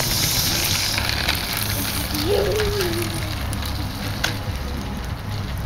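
Small plastic wheels of a toy umbrella stroller rolling over rough asphalt: a gritty crackling with many small ticks, loudest in the first second or so, over a steady low rumble.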